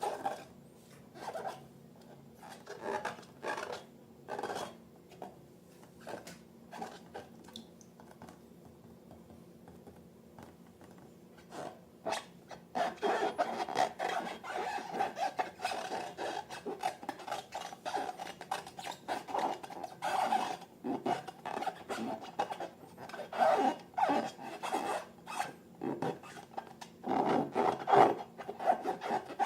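Slime being worked by hand, with sticky squishing and rubbing strokes: a few scattered strokes at first, becoming a dense, continuous run from about twelve seconds in.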